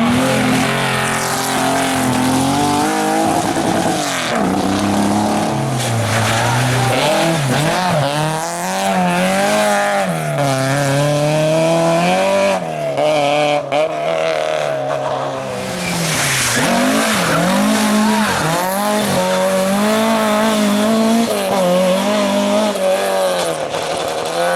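Rally car engine running hard on a stage, its pitch climbing and then dropping sharply over and over as it works through the gears.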